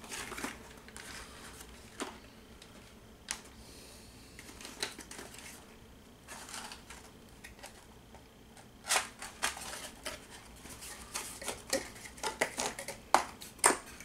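Cardboard packaging and plastic prop parts being handled: scattered light clicks, taps and rustles, busier in the last few seconds.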